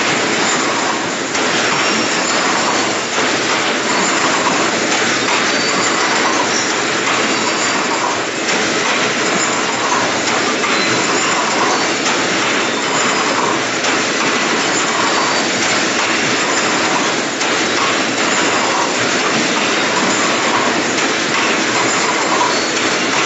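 Automatic hinge joint fence weaving machine running, a steady, unbroken mechanical noise as it weaves steel wire into fence mesh.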